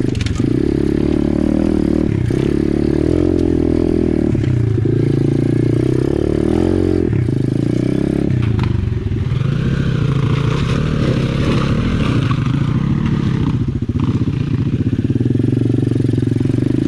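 Apollo RFZ 125cc pit bike's single-cylinder four-stroke engine running under load close to the microphone, its revs rising and falling with the throttle. The bike rattles and knocks as it rides over the rocky trail.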